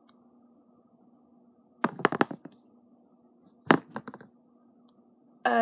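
Two short clusters of sharp clicks and knocks from handling close to the microphone, about two seconds in and again near four seconds, over a faint steady hum.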